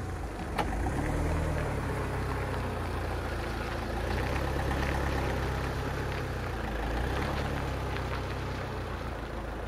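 Fiat Ducato van's diesel engine running at low revs as the van creeps and turns at walking pace, its note rising slightly now and then. A single sharp click comes about half a second in.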